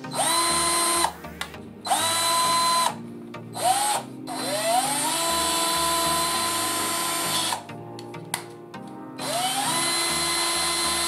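Black+Decker BCD003C2K 18V cordless hammer drill run with an empty chuck in repeated trigger pulls. Its motor whine rises in pitch as it spins up, holds steady and stops, five times; the longest run lasts about three seconds.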